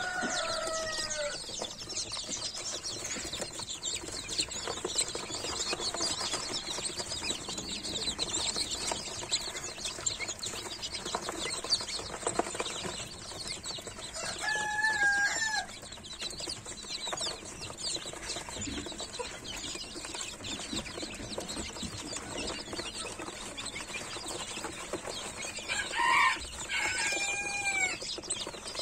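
A brooder full of chicks peeping constantly, many short high chirps overlapping. A few louder, lower-pitched calls stand out at the start, around the middle and near the end.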